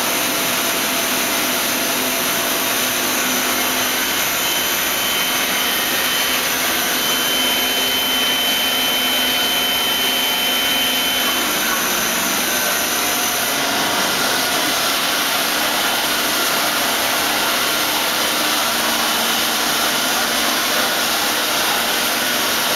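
Agie 270 HSS CNC wire EDM machine running under power, giving off a steady hissing noise with a faint high whistle for several seconds in the middle.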